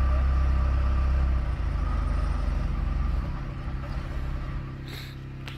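Telehandler engine running with a steady low hum that drops in level about one and a half seconds in and again about three seconds in, ending quieter. A short sharp click comes near the end.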